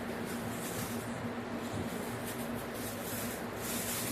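Chicken wings deep-frying in hot canola oil: a steady sizzle with irregular crackling that gets busier in the second half. A faint steady low hum runs underneath.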